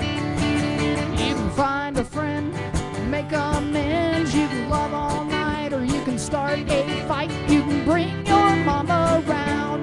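Live country band playing: acoustic guitars strummed over electric bass, with a melody line that bends in pitch coming in over the chords about a second and a half in.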